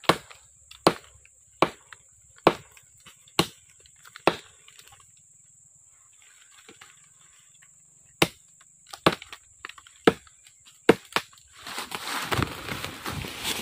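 Short, heavy machete (parang) chopping into a tree trunk: sharp blows a little under a second apart, about six, a pause of a few seconds, then four more. Near the end a dense crackling and rustling of branches and leaves takes over.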